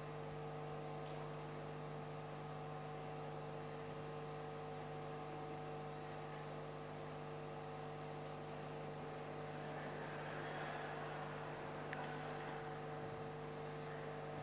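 Steady electrical mains hum: a low buzz with a few fainter higher tones over a light hiss.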